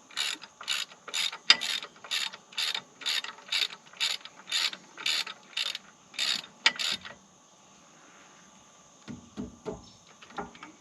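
Ratchet wrench clicking in short strokes, about two a second for seven seconds, as it tightens the plug on a skid steer's track adjuster, then stopping. A few faint clicks follow near the end.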